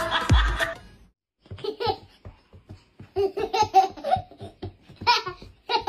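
A toddler laughing in repeated short bursts of giggles. Before that, background music cuts off about a second in.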